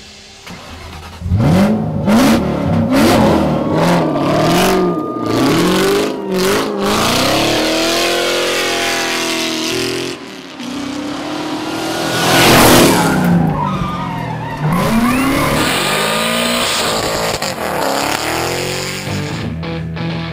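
Triumph Speed Triple motorcycle and Ford Mustang Cobra engines revving hard, their pitch rising and falling again and again, with tyres squealing as they drift. A loud rush about twelve seconds in as a vehicle passes close by.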